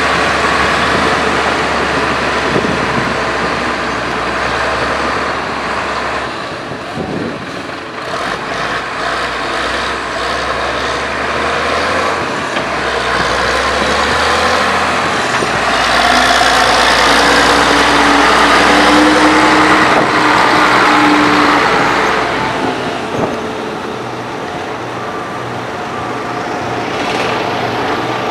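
Heavy diesel road-construction machinery running steadily, with a held tone partway through. Near the end a reversing alarm starts beeping, about one beep a second.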